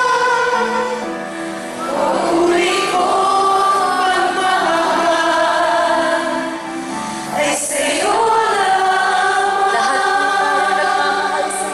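Church worship team singing a Tagalog worship song in several voices over live band accompaniment, with long held notes.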